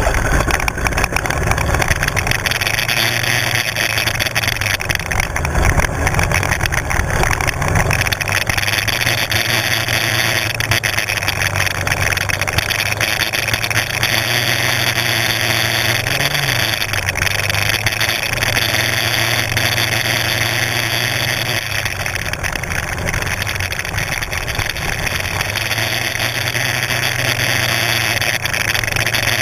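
Kymco 250 sport quad's engine running steadily at low speed on a dirt track, with a short rise in revs about halfway through.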